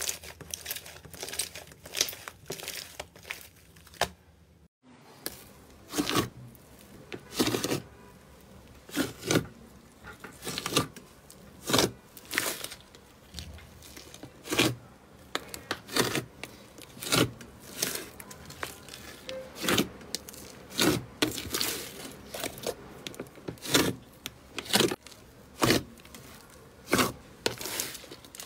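Slime being squeezed and pressed by hand: a run of short, sharp crackles about once a second, broken by a brief silent cut about five seconds in.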